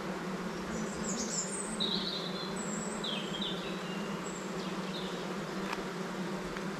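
Honeybees buzzing in a steady low hum over an open hive crowded with bees while its frames are worked.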